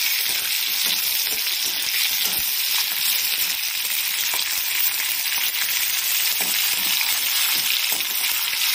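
Onions, green chillies and garlic sizzling steadily in hot oil in a kadai, with light scrapes of a metal slotted spatula stirring them.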